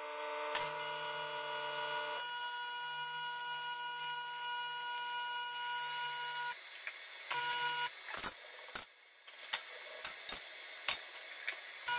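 AC TIG welding arc on aluminum, a steady electric buzz made of several fixed tones. It strikes about half a second in and runs for some six seconds, cuts out, burns again briefly, then stops. A few sharp clicks follow near the end.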